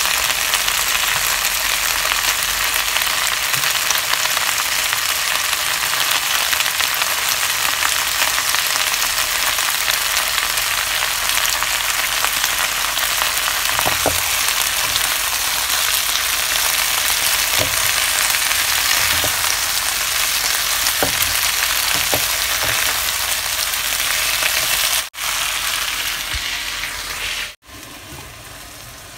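Malabar spinach (alugbati) sizzling as it is sautéed in hot oil in a pan, a steady loud hiss with a few light taps from stirring midway. Near the end the sizzle cuts off abruptly, leaving a much quieter hiss.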